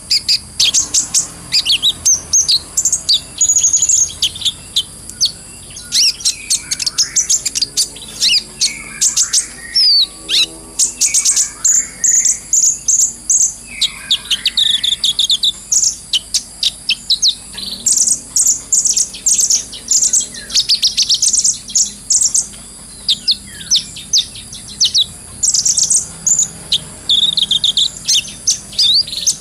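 Kolibri ninja sunbird singing a long run of rapid, high-pitched twittering chirps and trills in quick phrases, the full chattering song used to tutor other songbirds.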